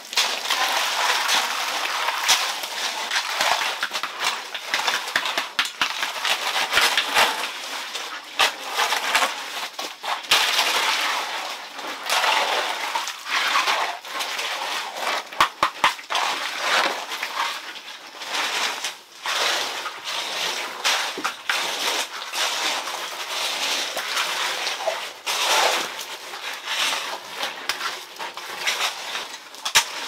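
Water splashing and sloshing, with many irregular small knocks.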